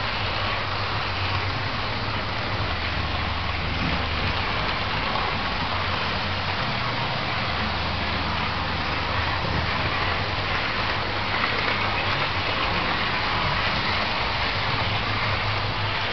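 Model train running on the layout's track: a steady whir of the locomotive's motor and wheels on the rails, with a low hum that rises and falls.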